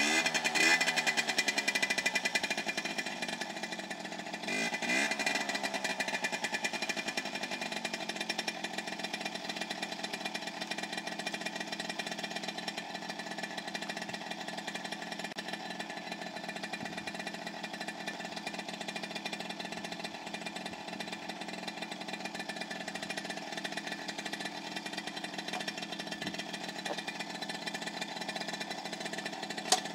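Small two-stroke engine of a child's Suzuki mini dirt bike running, revved up briefly twice in the first few seconds, then idling steadily. A single sharp click near the end.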